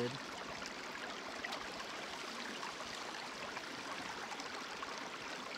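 Creek water running steadily through a fluid bed sluice: a constant, even rushing.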